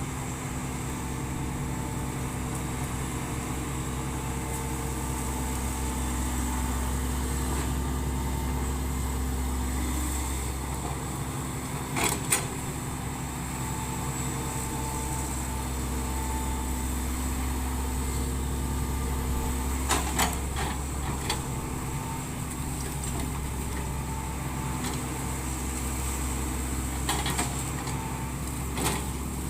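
Hitachi Zaxis 110 hydraulic excavator's diesel engine running steadily under work, with a faint whine that comes and goes. A few sharp knocks come near the middle and again near the end.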